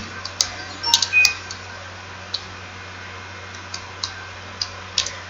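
Computer keyboard keys clicking as text is typed: irregular single keystrokes, several close together in the first second and a half, then sparser, over a faint steady low hum.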